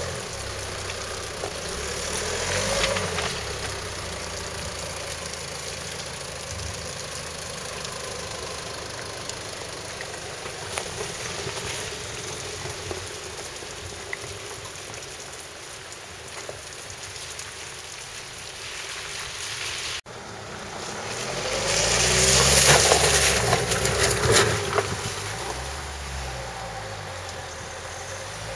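Land Rover Freelander 2 TD4 diesel engine running at low revs as the 4x4 crawls over rough ground, its note rising and falling as the driver works the throttle. After a cut about two-thirds through, a loud rushing noise swells over the engine for a few seconds and fades.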